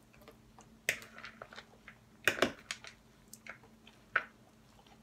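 Metal fork picking through a spinach salad in a glass bowl: a few short clicks and rustles scattered through the quiet, the loudest pair about two and a half seconds in.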